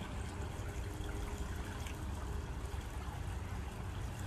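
Swimming-pool water trickling and lapping as a dog moves in it, over a steady low rumble.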